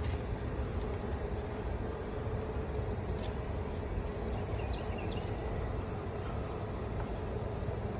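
Steady motor hum over a low rumble, with a few faint clicks.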